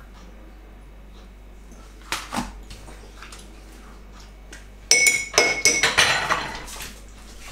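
A spoon knocking and clinking against glass and crockery dishes: a couple of light knocks about two seconds in, then a quick run of ringing clinks from about five seconds in.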